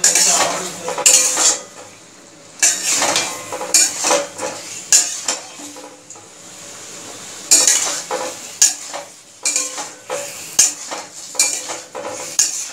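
Metal spatula scraping and clattering against a metal pan as boiled taro corms (kochumukhi) are stirred through a thick yogurt masala. The strokes are irregular, with a couple of brief lulls.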